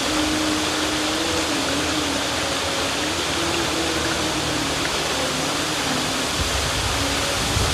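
River water rushing steadily, with a faint hum underneath that wavers slowly up and down in pitch.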